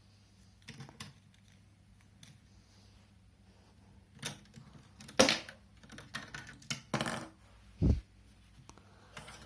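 Hard plastic Lego pieces being handled, a scattered series of clicks and clacks with a low thump near the end.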